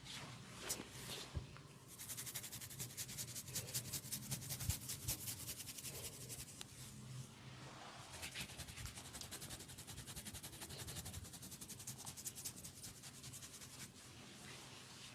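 Hands rubbing during a massage: a quick, steady run of scratchy rubbing strokes that picks up about two seconds in.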